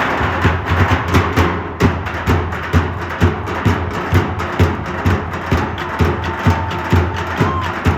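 Music with a steady drum beat, about two strokes a second.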